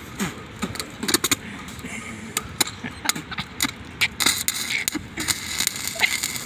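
Stick arc welding on a steel pipe joint: the electrode's arc crackling and spitting irregularly, with sharp pops scattered through.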